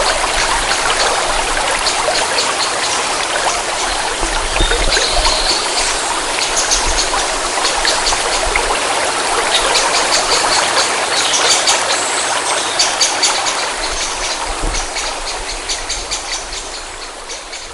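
Forest stream flowing: a steady rush of water with many small splashes and drips, slowly fading down toward the end.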